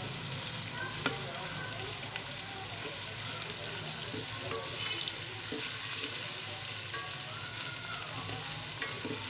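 Sliced onions and chopped garlic sizzling steadily in hot oil in an aluminium pot, at the early stage of being fried until lightly pink. A wooden spatula stirs them, with a few short scrapes and knocks against the pot.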